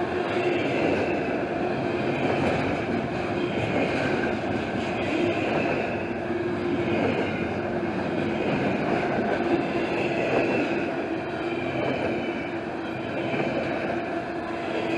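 Double-stack intermodal container train rolling past at close range: steady wheel-on-rail rolling noise from the container cars, with a thin sustained tone running underneath.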